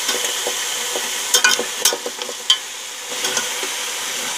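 Goat trotters sizzling in hot oil and fried onion-spice masala in a metal pot. A few sharp clatters of the spatula and bones against the pot come in the middle.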